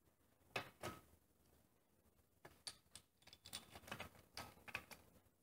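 Faint, scattered clicks and taps of metal parts being handled: an exhaust pipe and its compression ring worked by hand onto an ATV engine's cylinder head. Two light clicks come near the start, then a run of small ticks from about halfway on.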